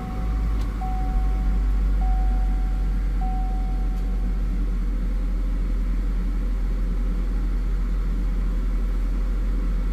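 2020 Chevrolet Equinox's 1.5L turbocharged four-cylinder engine idling steadily just after being started, heard from inside the car. A dashboard warning chime sounds four times, about once a second, in the first few seconds, then stops.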